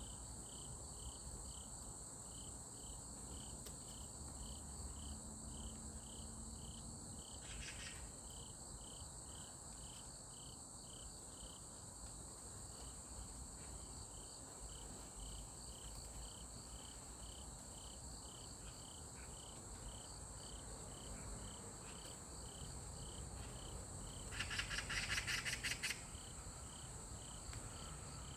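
Insects calling: a steady high-pitched trill with a regular chirp about twice a second. Near the end there is a louder, rapid buzzing trill lasting about a second and a half.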